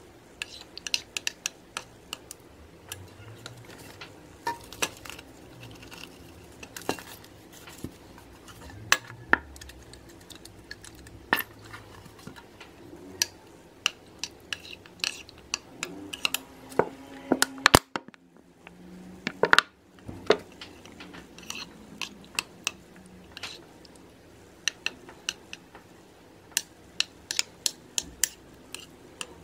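Metal butter knife stirring thick slime in a glass bowl: irregular clinks and scrapes of the blade against the glass, with one sharper clink about two-thirds of the way through.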